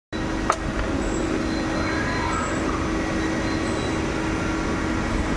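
CNC machine running with a steady mechanical hum and one held tone, with a sharp click about half a second in.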